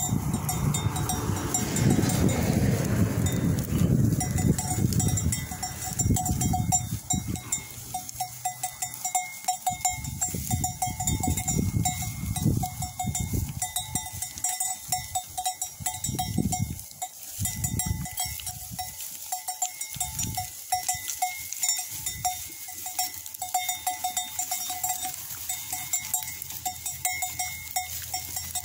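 Bells worn by a flock of sheep clinking in an uneven, continual patter. Low rumbling noise is heavy in the first six seconds and comes in scattered bursts after.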